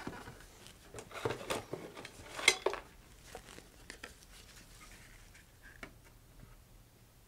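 Small objects being handled on a worktable: a quick run of light clicks and knocks, the sharpest about two and a half seconds in, then a few faint ticks.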